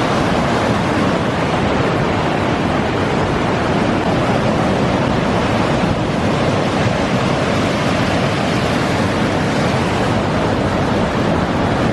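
A rushing waterfall: falling water making a steady, loud rush that does not change.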